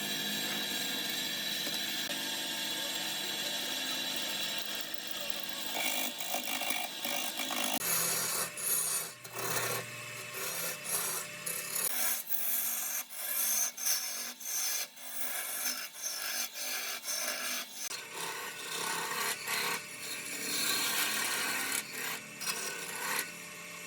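Wood being turned on a lathe, a tool scraping against the spinning wood: a steady cutting hiss for the first several seconds, then a run of short, irregular scraping strokes.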